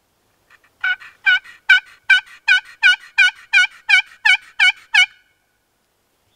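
Hen-turkey yelps run on a friction pot call with a wooden striker: a series of about a dozen evenly spaced yelps, just under three a second, lasting about four seconds. The calling is meant to strike a gobbler into gobbling.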